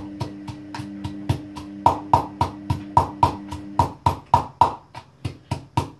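Pestle pounding garlic and salt in a mortar, about three to four even strikes a second, each with a short ringing note.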